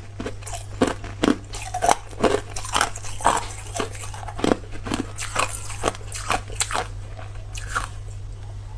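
A person biting and chewing hard, clear ice: a quick run of sharp, irregular crunches, about two to three a second.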